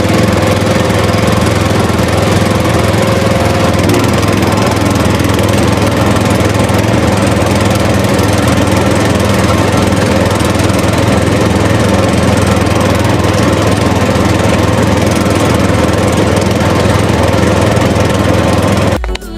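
A motor running steadily at constant speed with a low hum, cutting off suddenly near the end.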